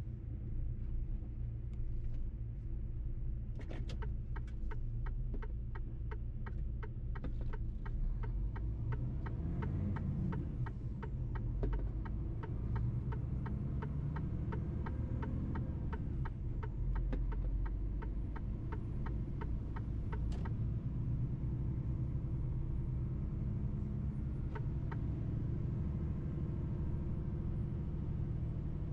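Mercedes-Benz truck driving, its engine drone and road rumble steady and low. A rapid, regular ticking runs from about four seconds in until about twenty seconds in.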